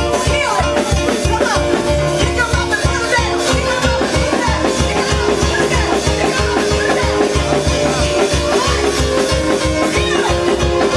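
Worship music with a fast, steady bass beat under held chords and busy percussion.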